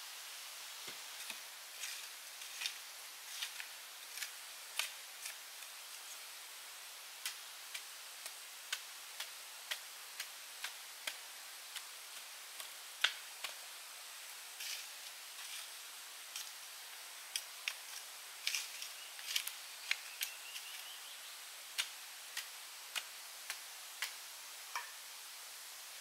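Irregular sharp clicks and light taps, about one or two a second, over a steady hiss.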